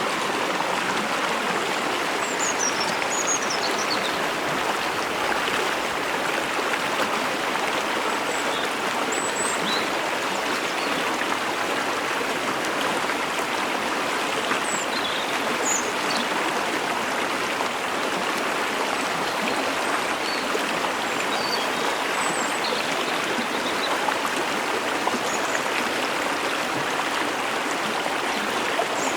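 Steady rush of water at a mountain waterfall, with faint, short, high bird chirps scattered throughout.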